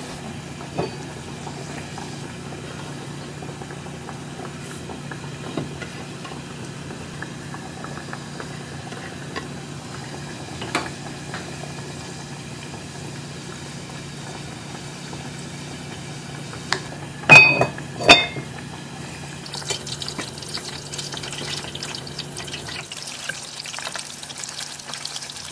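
Kitchen cooking sounds: a steady low hum with light clinks of utensils, and two loud clanks of cookware in quick succession about two-thirds of the way through. After them a hiss of water or frying comes up, and the hum stops near the end.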